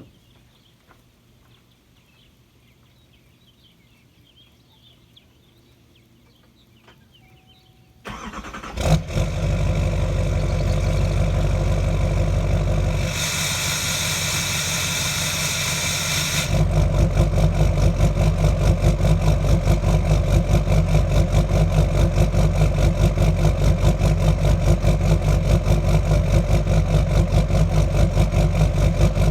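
LMM Duramax 6.6-litre V8 turbo-diesel cranking and firing about eight seconds in, then running. For about three seconds shortly after it starts, a loud high rushing noise sits over the engine, the unusual start-up sound. It cuts off about sixteen seconds in, and the engine then settles into a steady, evenly pulsing idle.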